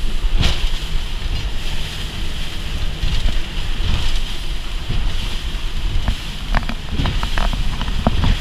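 Triple Mercury Verado 350 outboards running at high speed, buried under wind buffeting the microphone and the rush of water and spray along the hull. A run of sharp knocks comes near the end.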